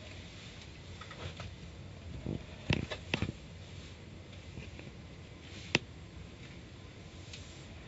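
Quiet, steady low rumble inside a car cabin, with a quick run of three sharp knocks just under three seconds in and a single sharp knock near six seconds.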